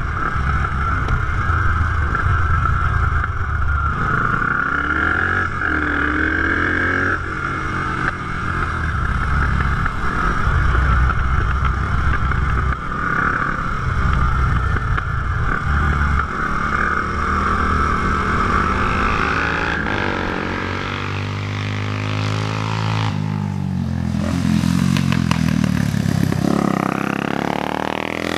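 Single-cylinder four-stroke engine of a 1981 Honda XL500 café racer running under load, heard from the rider's position on the bike, its note shifting as the throttle changes. In the last few seconds the engine note rises and falls.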